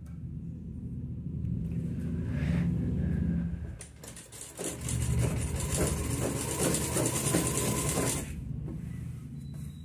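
Sewing machine stitching fabric, needle running in a rapid even rhythm. It slows briefly about four seconds in, runs again louder, and drops back quieter near the end.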